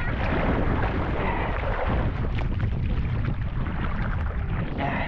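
Wind buffeting the microphone over choppy water, with splashing and sloshing as a swimmer strokes to a floating foil board and pulls onto it.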